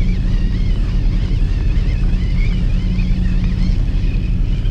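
Fishing boat's engine running steadily, a low even hum with a faint wavering whine above it.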